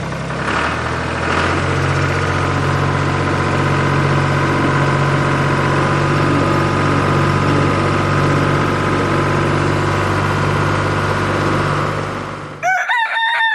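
Tractor engine idling steadily, then cutting off abruptly near the end. A rooster starts crowing right after.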